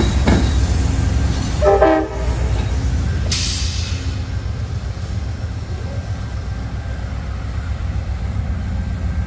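Amtrak GE Genesis diesel locomotive and its passenger train rumbling as they roll slowly away. There is one short horn toot about two seconds in and a brief hiss about a second after that.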